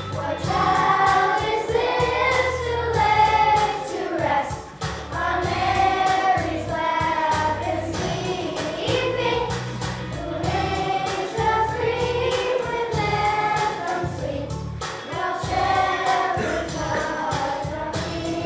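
Children's choir singing together in phrases of a few seconds, with short breaths between them.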